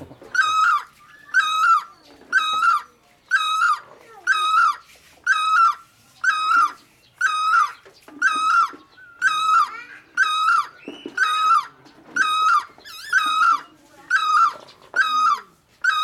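Great barbet calling: a loud, hooked note that dips and rises, repeated steadily about twice a second.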